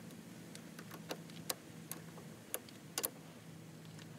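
Hand tools working on a car battery terminal: a wrench and ratchet give about eight sharp metallic clicks, spaced unevenly, two of them close together about three seconds in. A faint steady low hum runs underneath.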